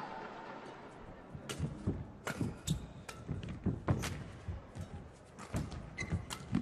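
Badminton rally: sharp racket strikes on the shuttlecock mixed with players' footfalls and thuds on the court, irregular and quick, starting about a second and a half in.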